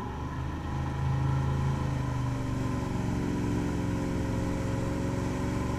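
Tow boat's engine accelerating hard to pull a wakeboarder up out of the water. Its pitch rises for the first couple of seconds, then holds steady at pulling speed, over a rush of water from the wake.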